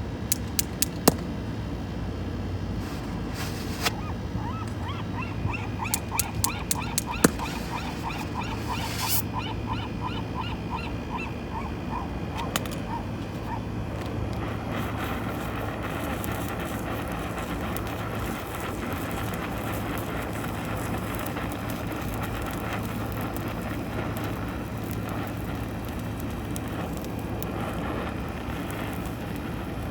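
A gull calling a long run of repeated notes, about three or four a second, from about five to twelve seconds in, over a steady low hum. A few sharp clicks come in the first seconds.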